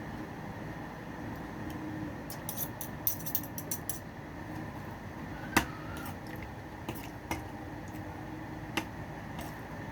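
Eating sounds: cutlery clicking and scraping against a plate or bowl, with a run of small clicks and one sharper, briefly ringing clink about halfway through, over a steady low hum.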